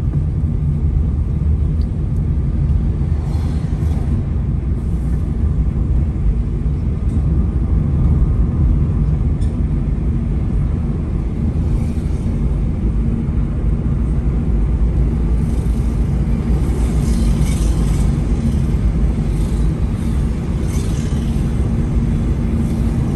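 Car driving along a paved road, heard from inside the cabin: a steady low rumble of engine and tyres, with a few brief hissing swells in the last third.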